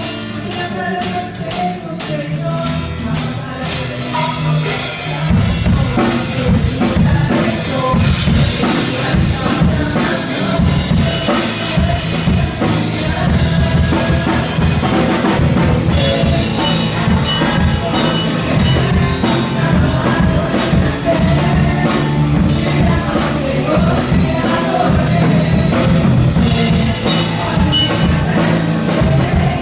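Worship band playing, with drum kit, bass and singing; the drums and bass come in fuller about five seconds in and drive a steady beat from there.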